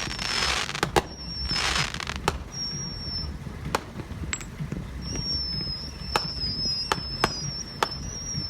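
Brothers consumer finale set of aerial cakes firing: sharp shell reports at uneven intervals over a hiss, with a thin, wavering high whistle through the second half.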